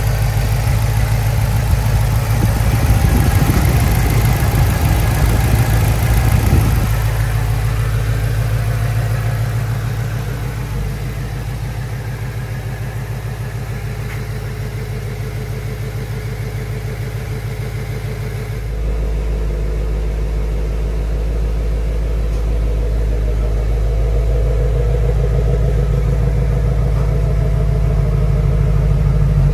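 2017 Shelby GT350R's 5.2-litre flat-plane-crank V8 idling steadily. The sound changes abruptly about two-thirds of the way in, then grows a little louder toward the end.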